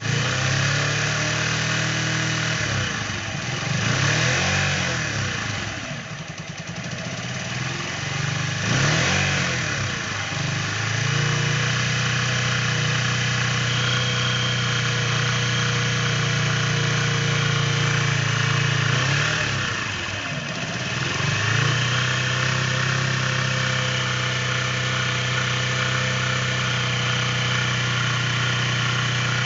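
Keeway Cafe Racer 152 single-cylinder motorcycle engine idling steadily, revved briefly three times and dropping back to idle. It is running with the knocking engine noise that the owner sets out to fix.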